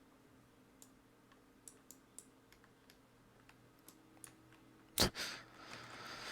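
Scattered light computer clicks, about a dozen over three or four seconds, as images are searched on screen. About five seconds in comes one loud sharp sound, followed by a breathy rush of noise.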